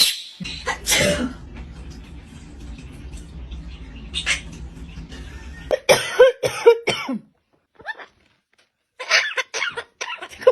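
Parrot mimicking a person's cough, harsh rasping bursts, then a run of short calls that rise and fall in pitch, in a meow-like way.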